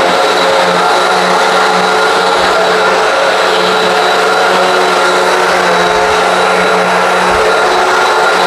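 Hoover WindTunnel High Performance upright vacuum running steadily, its motor whine and brushroll agitation unchanged as it cleans an outdoor rug.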